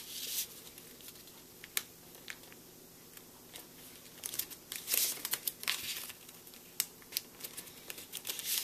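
A sheet of paper being folded and creased by hand: scattered short crinkles and rustles, busiest about halfway through and again near the end.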